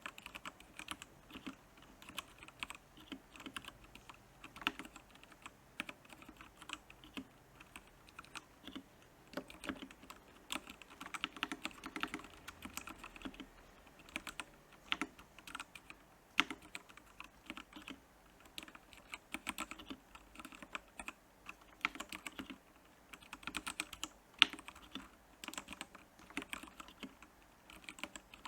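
Typing on a Royal Kludge R87 mechanical keyboard: a steady, irregular stream of key clicks and clacks, with the odd louder stroke.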